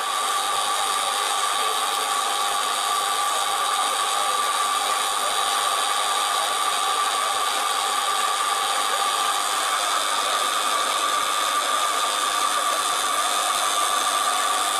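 Radio-controlled scale model wheel loader (FAUN F 2010) running its electric motors while it carries a large rock in its bucket: a steady, even whine with one strong tone and fainter higher ones.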